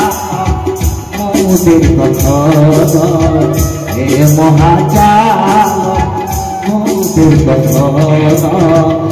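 Bengali folk ensemble playing: a bamboo flute carries an ornamented, sliding melody over held harmonium chords and a steady beat from an electronic drum pad.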